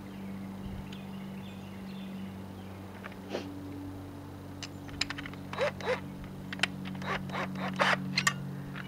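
Clicks, light clanks and short scrapes of a metal gutter bracket and hand tools being handled, starting about halfway and getting busier toward the end, over a steady low hum.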